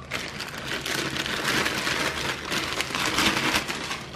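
Clear plastic bag crinkling and rustling as a finned aluminium cylinder head is pulled out of it by hand: a dense, crackly rustle with many small clicks, loudest through the middle.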